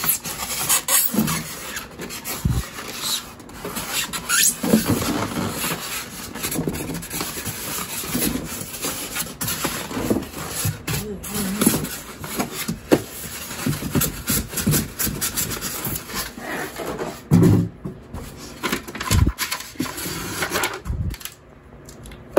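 Polystyrene foam packing end caps scraping and rubbing against each other and against a cardboard box as they are pulled free, with a few sharp knocks.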